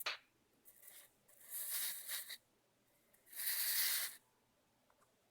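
Brief scraping and rubbing of a 3D-printed plastic case being handled, in two short hissy strokes, with a click at the start.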